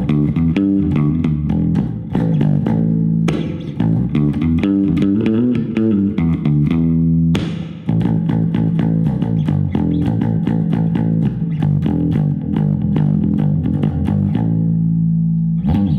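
Electric bass guitar played through a portable PA speaker: a run of quick plucked notes with brief pauses about three and seven seconds in, stopping just before the end.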